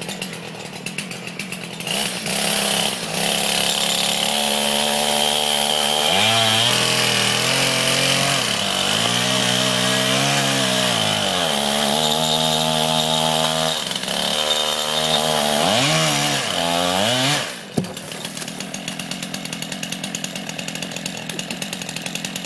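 Two-stroke chainsaw engine driving a chainsaw winch, running at high revs as it pulls a log, its pitch sagging and recovering again and again under the load. About eighteen seconds in it drops abruptly to a lower, pulsing idle.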